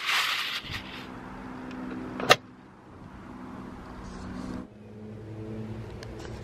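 A small three-cylinder petrol car engine running steadily at idle, with one sharp click about two seconds in.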